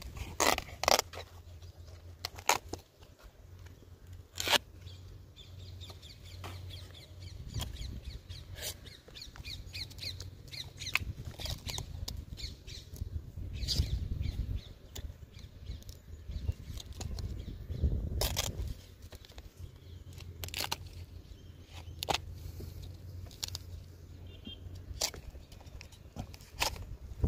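Tapping knife cutting and knocking at the flower stalks of a palmyra palm: irregular sharp knocks and scraping cuts, a few much louder strikes among them.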